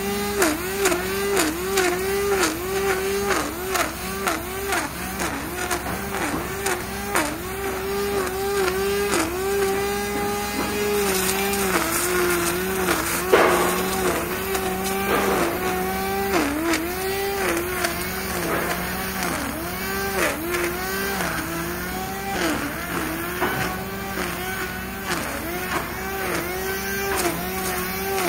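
A construction-site machine running with a steady whine whose pitch dips briefly and recovers roughly once a second, with many sharp clicks over it.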